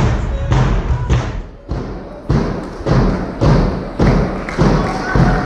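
Heavy rhythmic thumps, about two a second, evenly spaced. A faint steady tone joins near the end.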